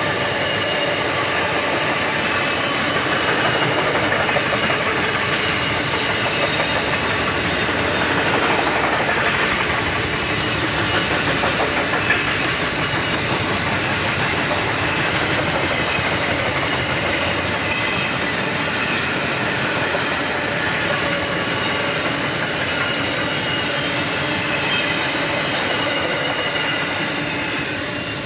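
Loaded grain hopper wagons rolling past, steel wheels clattering steadily on the rails with a thin high ringing over the rumble. The sound starts to fall away near the end as the last wagon goes by.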